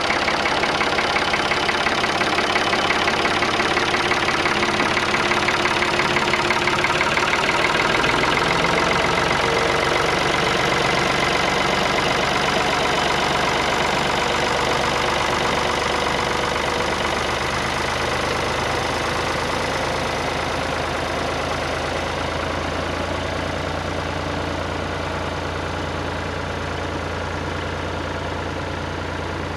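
Tractor engine running steadily; a deeper hum joins about eight seconds in, and the sound eases off slightly toward the end.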